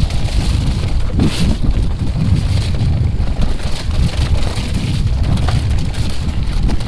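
Wind buffeting the microphone of a camera on a mountain bike riding downhill, over the steady rumble of the tyres rolling on a wet, snowy trail, with a few knocks from bumps.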